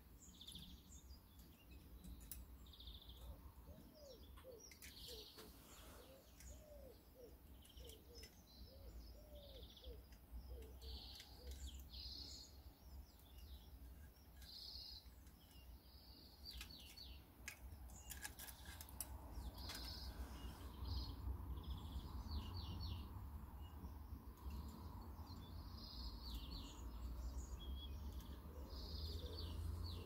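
Small birds chirping and twittering in repeated short high calls, over a faint low rumble.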